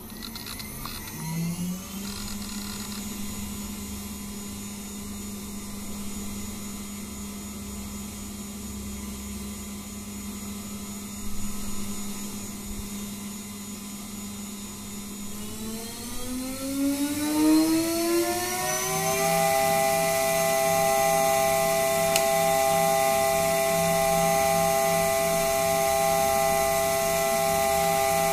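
2.2 kW water-cooled CNC router spindle running with a steady whine. At about 16 s it speeds up over about three seconds to a higher-pitched, louder whine at full speed, 24,000 RPM.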